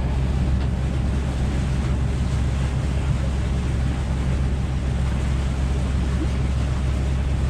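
Sailboat's engine running steadily as a low drone, with wind and water noise over it.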